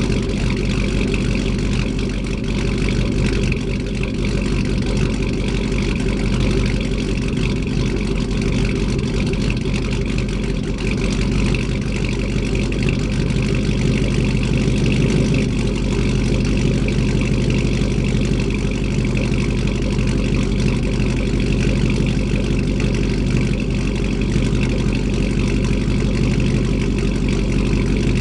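2000 Chevrolet Silverado's 4.8-litre V8 idling steadily through a 3-inch exhaust, heard right at the dual tailpipes.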